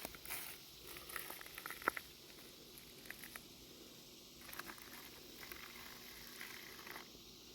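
Water poured from a bucket, splashing and pattering onto dry soil and plants in two bouts with a lull between.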